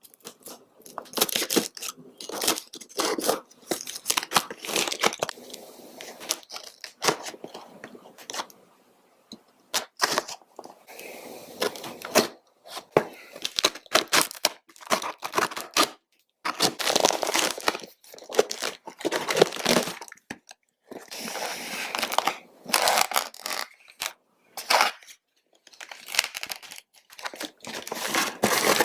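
Packaging being torn open and crinkled by hand: irregular spells of tearing and crumpling with sharp crackles, broken by short pauses.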